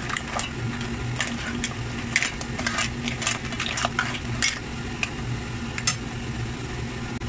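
Clams in their shells being stirred in a pot with a spatula: irregular clacks and clicks of shell on shell and on the pot, which stop about six seconds in. A steady low hum runs underneath.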